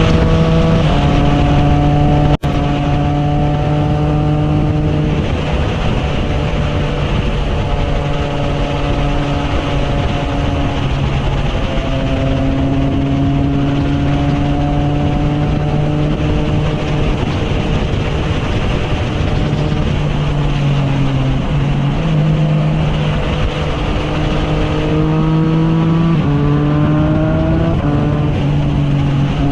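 Triumph Trident 660's inline three-cylinder engine through a Zard aftermarket exhaust while being ridden. It runs at a steady pitch for stretches, and the note steps up and down several times as speed and gears change. It rises under acceleration near the end, with a brief dropout about two seconds in.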